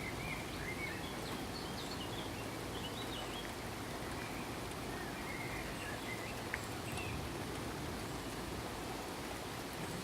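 Steady rain falling, with birds giving short chirps over it in the first few seconds and again past the middle, and a single sharp drip-like click near the end.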